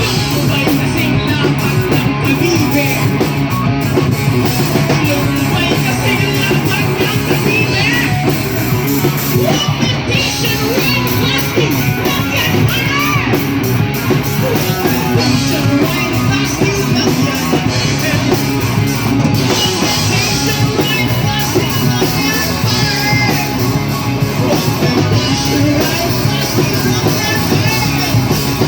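Live rock band playing loudly, with a singer over electric guitar and drums.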